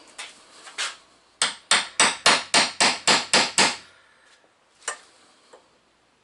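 Hammer tapping quickly, about nine sharp strikes in a row at roughly four a second. A couple of lighter knocks come before the run and a single knock follows it.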